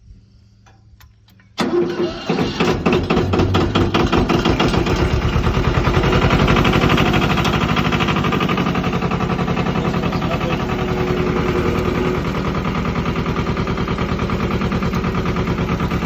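Yanmar compact tractor's diesel engine starting: it catches abruptly about a second and a half in, then runs steadily with a fast, even firing beat.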